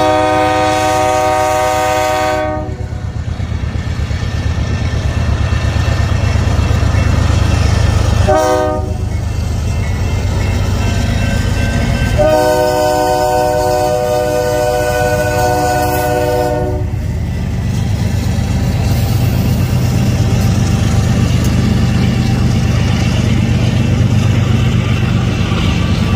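Diesel freight locomotive's multi-tone chord horn blowing for a grade crossing: a long blast ending about two and a half seconds in, a short toot about eight seconds in, then a long blast about twelve seconds in lasting four seconds or so. Under it the locomotives' diesel engines run with a steady low rumble as the train passes, and the loaded freight cars roll by on the rails.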